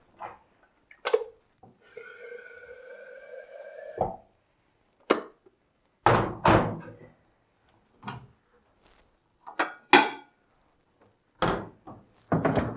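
Water running into an electric kettle for about two seconds, rising slightly in pitch as it fills. Then a string of clicks and clunks as the stainless-steel kettle is handled on its base and a bowl is set down on a stainless-steel worktop.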